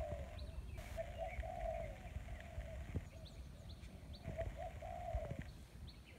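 A dove cooing: a low phrase of several notes, starting about a second in and again about four seconds in, with faint chirps of small birds.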